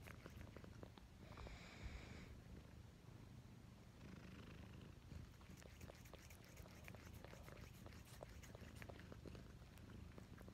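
Domestic cat purring faintly, close to the microphone, with scattered small clicks.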